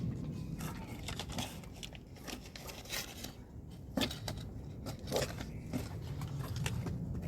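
Crinkling and rustling handling noises with a run of sharp clicks and snaps, the strongest about four seconds in and again a little after five seconds.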